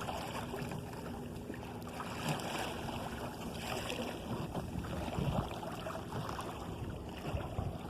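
Water rushing and lapping along the hull of an open sailing canoe under way, with some wind noise.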